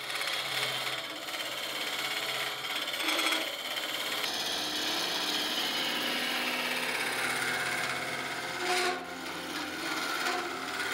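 A turning gouge scraping and cutting inside a spinning wood-and-resin vessel on a lathe, steady and continuous as the interior is hollowed out.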